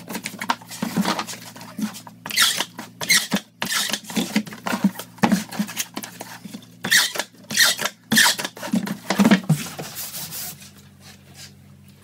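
Cardboard shipping carton being folded shut and sealed with packing tape: a run of irregular rustles, scrapes and tape rips, dying down near the end.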